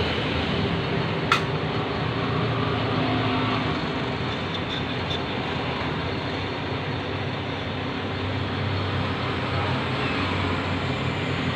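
Metal lathe running steadily, its spindle turning a PTFE (Teflon) rod as the tool cuts it and peels off a long curling chip. A single sharp click about a second in.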